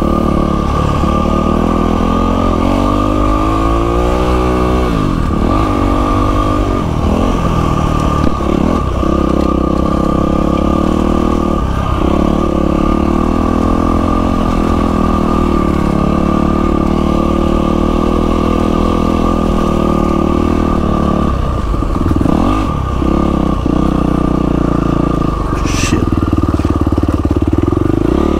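Yamaha WR450F single-cylinder four-stroke dirt bike engine running while riding, its revs dropping and climbing again a few times with throttle and gear changes.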